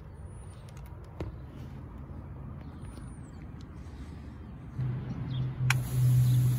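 Outdoor rooftop ambience: a steady low hum that grows louder about five seconds in, with two faint high chirps from a bird. Near the end a sharp click is followed by a steady high hiss.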